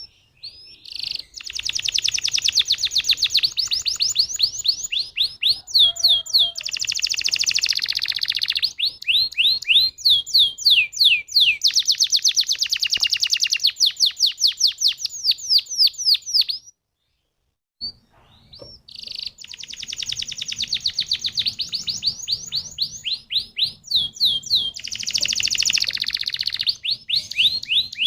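Domestic canary singing long, fast trills of rapidly repeated sweeping notes and rolls. The song stops dead for about a second two-thirds of the way through, then starts again.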